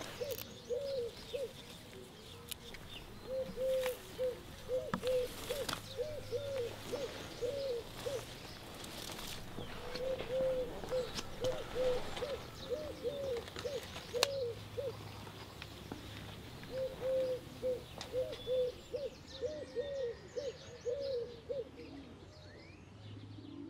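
A pigeon cooing in repeated phrases of several low, hooting notes, with faint small-bird chirps behind.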